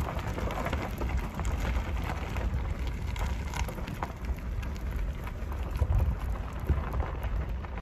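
Vehicle rolling along a dirt road: tyres crackling and ticking over gravel and debris above a steady low rumble.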